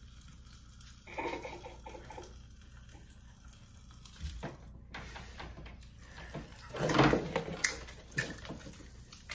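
Pop Rocks popping candy crackling and fizzing in open mouths as a faint, steady crackle, with bursts of laughter about a second in and again around seven seconds.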